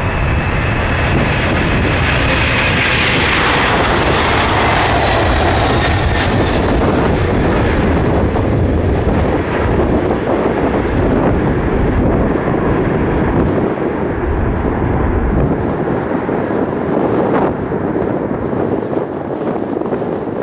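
Boeing 747-400's four turbofan engines at takeoff power as the jumbo lifts off and climbs away, a loud steady roar. A high whine slides slowly down in pitch as it passes, and the deep rumble thins out near the end as it draws away.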